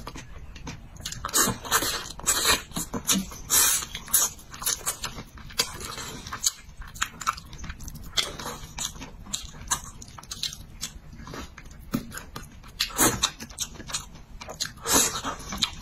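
Close-up sounds of a person chewing and biting mouthfuls of spicy braised fish: wet mouth clicks and short smacking noises in irregular bursts, with louder clusters of bites at intervals.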